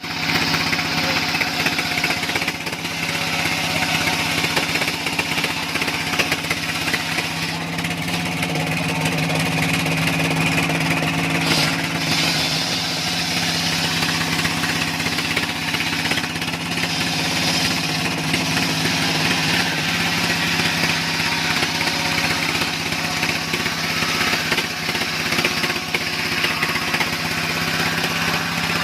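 An engine running steadily at constant speed, with a continuous high hiss above its hum.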